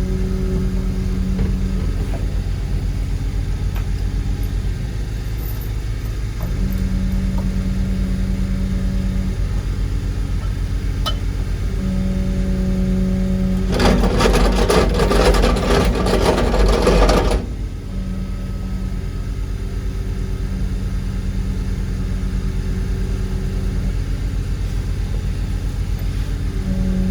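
A vibratory hammer runs for about three and a half seconds with a loud, dense buzz, starting about fourteen seconds in, pulling a dock piling back up. Under it, the barge machinery's engine runs steadily with a hum that comes and goes.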